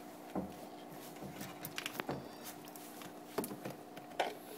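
Faint handling noise of hands working a plastic juice bottle's yellow cap and its airline tubing: a few soft knocks and rubs, scattered and irregular, over a steady low hum.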